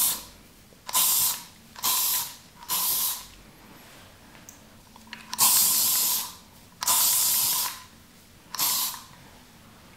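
Aerosol hairspray sprayed onto the hair in about seven short hissing bursts, the ones in the middle longest at about a second each, with short pauses between.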